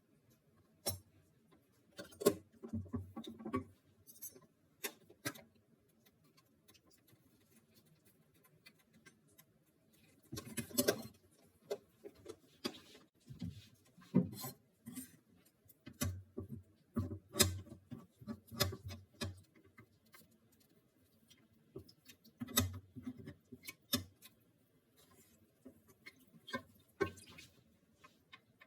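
Intermittent light knocks, taps and clatters of kitchen dishes and utensils being handled, in small clusters with quiet gaps between.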